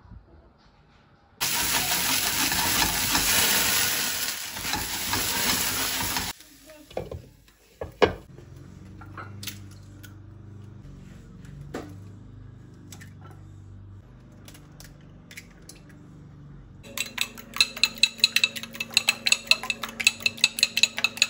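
A loud, steady hiss for about five seconds near the start, then a sharp knock and a few light clicks and handling noises. Near the end a fork whisks eggs in a ceramic bowl, with quick clinking strokes about five a second.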